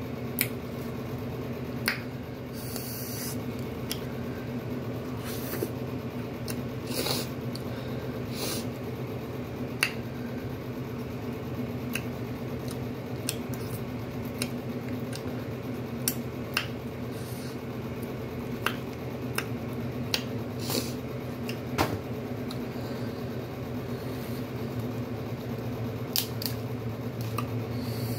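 Crab leg shells being cracked, snapped and picked apart by hand, with a plastic utensil prying out the meat: a scatter of short, sharp cracks and clicks. A steady low hum runs underneath.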